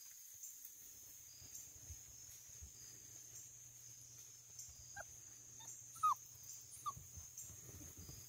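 Basset hound puppy whimpering: four short, high squeaks in the second half, the loudest one falling in pitch.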